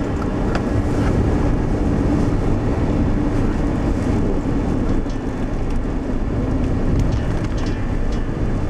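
Steady driving noise inside a moving car's cabin: engine and tyre rumble with wind noise.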